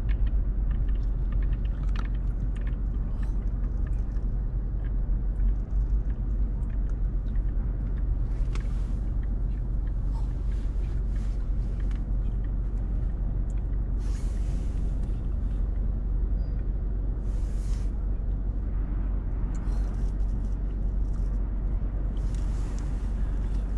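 A car driving through city streets: a steady low road rumble, with several short hissing swells of passing traffic and tyres above it.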